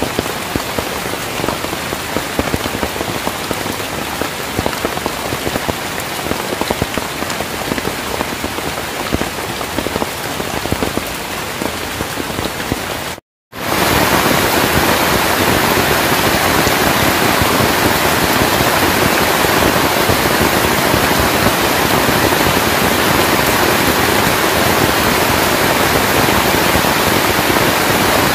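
Heavy rain falling steadily on forest foliage and ground. About halfway through, the sound cuts out for an instant and comes back as a louder, more even rush of rain.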